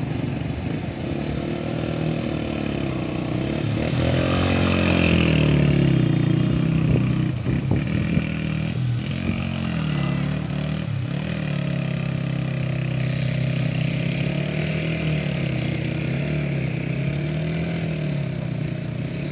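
Motorcycle engine revving up and down as it is ridden over a rough, rocky dirt track, loudest a few seconds in.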